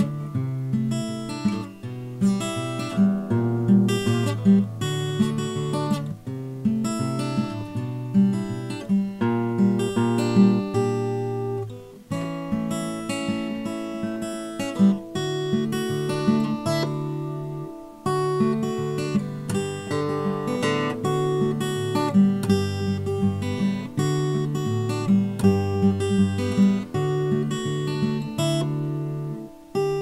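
Solo acoustic guitar music: plucked melody notes over low, sustained bass notes and chords, played without a break.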